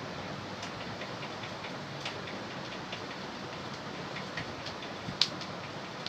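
A spatula stirring rice flour into cooked semolina in a non-stick kadai, scraping and tapping against the pan in irregular clicks, with one sharper knock about five seconds in. A steady hiss lies underneath.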